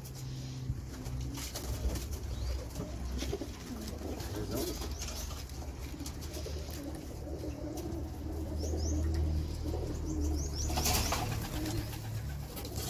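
Domestic pigeons cooing around a person hand-feeding them, with scattered short clicks and a brief burst of wing flapping near the end.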